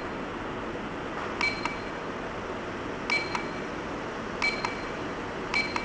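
Buttons pressed on an apple-shaped digital talking alarm clock, each press a click with a short electronic beep, four times about one to one and a half seconds apart, over a steady hiss.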